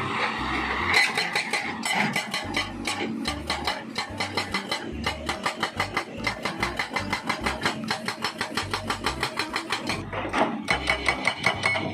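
Hydraulic rock breaker on a Hitachi Zaxis 200 excavator hammering rock: a rapid, even stream of blows, several a second, over the excavator's running diesel engine.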